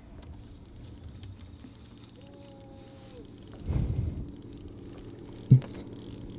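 Spinning reel being cranked against a heavy hooked fish: faint, rapid mechanical ticking from the reel's gears and handle, with a low thump about four seconds in.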